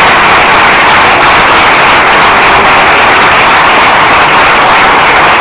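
Audience applauding and cheering at the end of a song, loud and steady.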